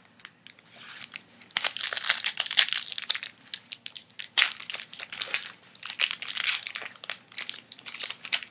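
Foil wrapper of a 2007 Bowman Chrome baseball card pack crinkling and tearing as it is opened by hand, in irregular bursts.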